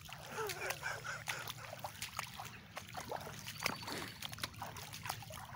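Footsteps wading through shallow floodwater over grass, with many small irregular splashes and drips.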